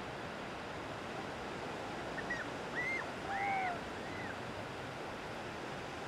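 Ocean surf breaking and washing steadily on a beach. A few short calls that rise and fall in pitch come in the middle.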